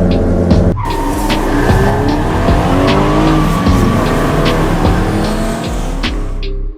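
Dubbed race-car sound effects: engines revving up and down with tires squealing, over background music with a steady beat. A steady engine drone changes abruptly to the revving a little under a second in, and the effects cut off suddenly at the end.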